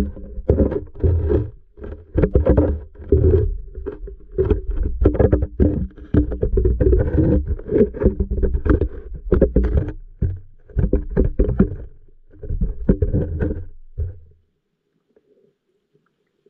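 Muffled water noise picked up by a submerged camera: irregular gurgling and knocking bursts, heaviest in the low end, under a faint steady hum. The noise stops about 14 seconds in.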